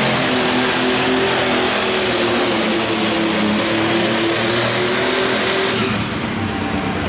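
Ford 8000 Limited Pro Stock pulling tractor's engine running at full throttle under heavy load as it drags the weight sled. The note holds steady, then drops off about six seconds in as the tractor stops at the end of the pull.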